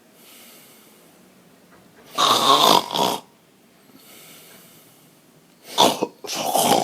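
A person snoring in sleep. There is a loud snore about two seconds in and two more snores near the end, with soft breathing between them.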